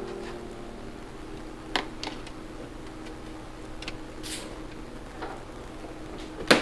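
Scattered light clicks and knocks as a portable twin-tub washer's spin-dryer basket is handled and loaded, over a faint steady hum, with one sharp, loud click near the end.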